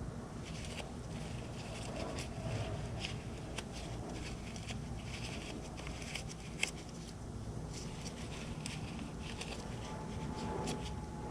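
Faint rubbing and scattered small clicks of a motorcycle throttle housing and tube being handled and wiped clean by hand, with one sharper click about two-thirds of the way through, over a low steady background hum.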